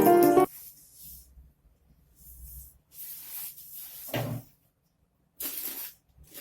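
Piano music cuts off about half a second in. It is followed by a few short scraping noises and a single thud about four seconds in, with another brief scrape near the end.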